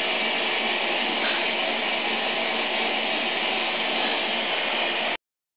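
Steady motor hum with a hiss, with no change in level, cutting off suddenly near the end.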